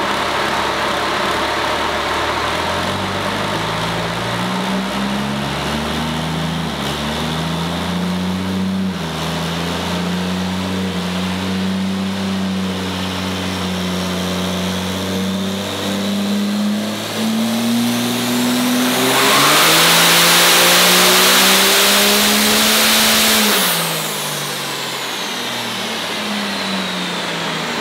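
Built Cummins diesel in a Dodge Ram pickup making a pull on a chassis dyno. The engine note climbs in steps, then rises into a loud full-throttle stretch of about four seconds with heavy turbo hiss. The throttle then closes, the engine drops back, and a falling turbo whine spools down.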